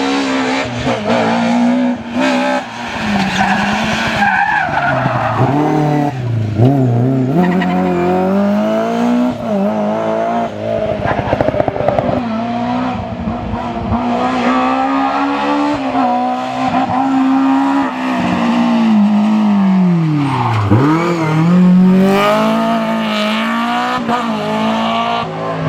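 Rally car engine under hard use, high revs that fall away and climb again. The drop is gradual around four to seven seconds in and sharp and brief about twenty seconds in. Tyres squeal through the corners.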